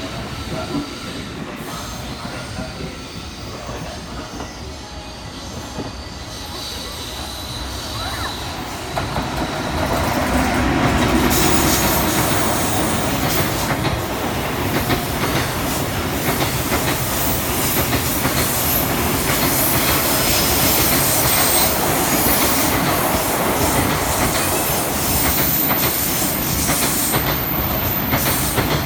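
Train running on the tracks through the station, quieter at first, then growing loud about ten seconds in and staying loud with dense rolling and rail noise.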